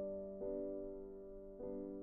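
Background music: slow, soft chords that change roughly every second, each fading before the next.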